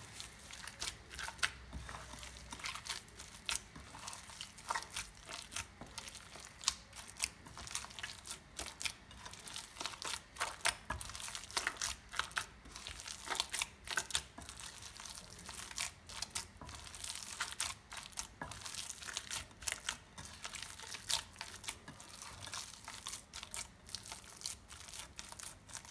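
A hand kneading and squishing a wet maakouda mixture of mashed potato, whiting and egg in a ceramic dish: rapid, irregular squelches and crackles.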